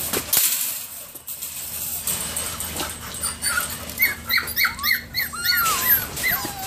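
German Shorthaired Pointer puppies whining and yelping: after some scuffling, a quick run of short, high whines starts about four seconds in, then a few longer falling whines.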